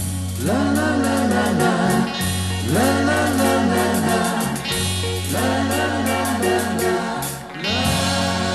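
Music: the closing bars of a Polish pop song, with a rising, arching melodic phrase repeated about every two seconds over a steady bass line and wordless vocals.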